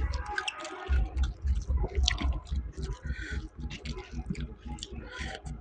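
Close-miked eating sounds of a person chewing: many quick wet clicks and mouth smacks over a fast, uneven low thudding of the jaw.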